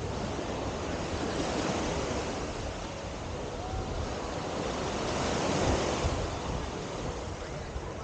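Ocean surf washing onto the beach, a steady rush that swells about five to six seconds in, with wind buffeting the microphone.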